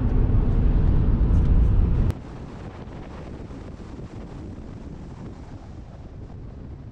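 Wind buffeting a truck-roof-mounted camera's microphone at driving speed, a heavy low rumble of wind and road noise. About two seconds in it cuts off abruptly to a much quieter steady rushing noise.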